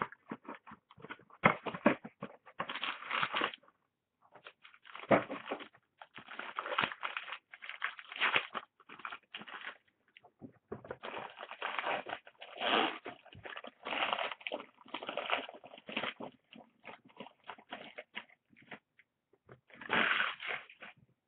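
Trading cards, packaging and a clear plastic card holder being handled close to the microphone: irregular rustling, sliding and light clicking, with short pauses between the bursts.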